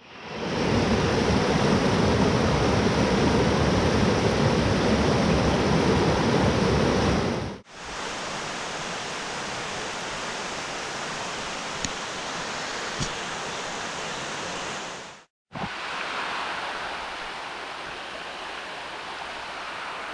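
Mountain creek rushing over rocks and small cascades. A loud, full rush of water for the first seven or so seconds cuts off suddenly to a quieter, steady flow, which breaks off briefly once more near two thirds of the way through.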